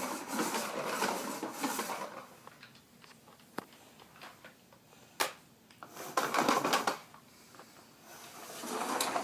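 Rustling and clattering handling noises in a small room, in bursts, with a couple of single sharp clicks.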